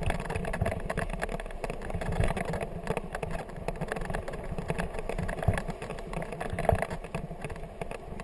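Kickbike rolling over a bumpy grass-and-dirt trail: a steady rough rumble with frequent short rattling knocks from the jolts.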